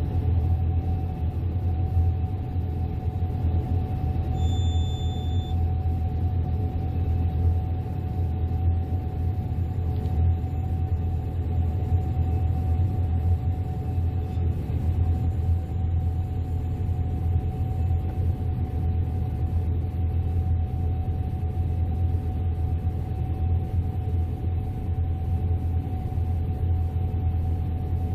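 Combine harvester running steadily under load: a deep constant rumble with a steady mid-pitched whine over it.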